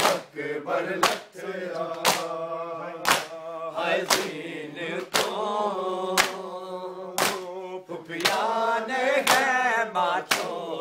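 A group of men chants a Punjabi nauha refrain in unison. Over it, hands strike bare chests in matam, a sharp slap about once a second that is the loudest sound.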